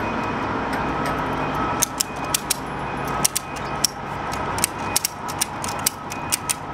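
Ratchet strap buckle being worked to tension the strap. From about two seconds in, its pawl gives sharp clicks, a couple a second and often in pairs, as the handle is pumped.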